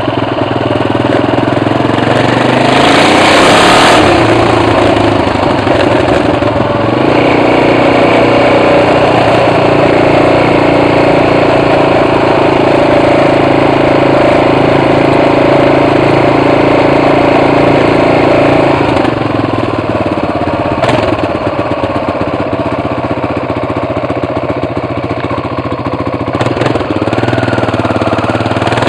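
BMW F 650 motorcycle engine running loud with no exhaust fitted. It swells briefly about three seconds in, holds a steady higher speed, eases off for the last third, and starts to rise again at the very end.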